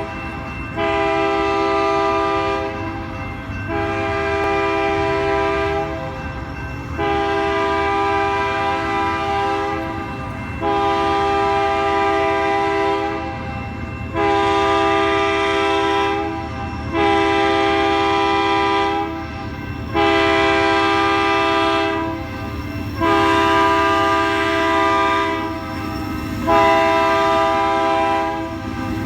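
A KCSM GE AC4400CW freight locomotive sounds its air horn in a run of about nine long blasts, each chord lasting two to three seconds with only brief breaks between them. Underneath runs the steady low rumble of its diesel engine working under full power as the train pulls away.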